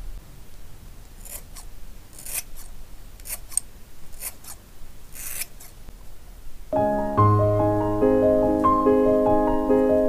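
Several short swishes of long hair being handled, spaced unevenly over the first six seconds; then piano music starts about seven seconds in.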